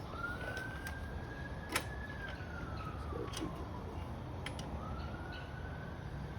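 A siren wailing: a single tone that rises quickly, holds, then falls slowly, twice over. A single sharp click cuts in about two seconds in.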